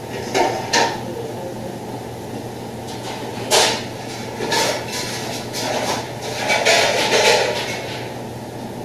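Scattered knocks and clatter of pots and cooking utensils, a few single knocks then a busier run of clatter, over the steady hum of a commercial kitchen extractor hood.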